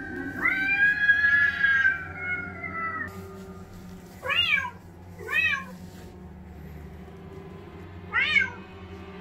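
Recorded cat meowing played through a speaker. One long, drawn-out yowl lasts about three seconds, then come three short meows that rise and fall in pitch, the last after a pause near the end.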